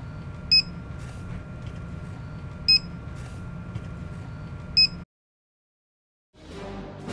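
Three short electronic beeps, about two seconds apart, over a steady low hum. The sound cuts off about five seconds in, and music starts to swell near the end.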